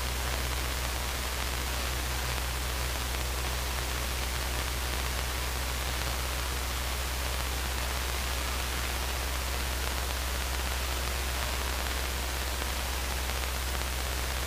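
Steady hiss over a low, even hum in the cabin of a Luscombe 8A in cruise flight, heard through the headset intercom feed, with the engine and propeller drone reduced to that low hum.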